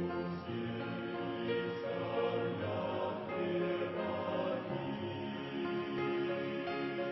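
A choir singing a hymn, holding chords that change about every second.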